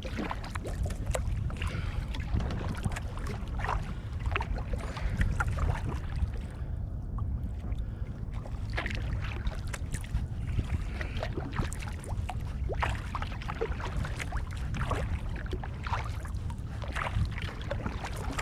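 Water splashing and lapping around a kayak, in small irregular splashes over a steady low rumble.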